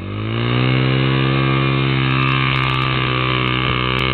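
ATV engine revving up over the first half second, then held steady at high revs.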